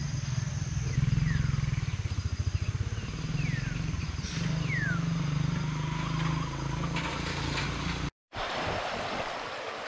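A steady low motor drone, with a bird giving a few short falling whistles over it. Just after eight seconds it breaks off and gives way to an even rushing noise.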